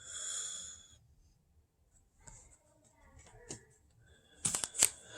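Trading cards being handled and flipped through: a short sliding swish at the start, faint ticks, then a few sharp clicks and snaps near the end.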